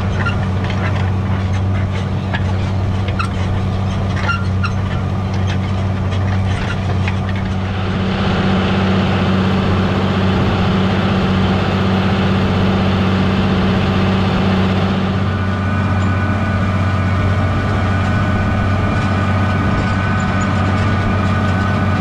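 John Deere 7200R tractor's six-cylinder diesel running steadily under load while pulling a seven-furrow plough through the soil. Scattered clicks come in the first several seconds, and a louder rushing hiss of soil and tyre noise rises from about a third of the way in to past the middle.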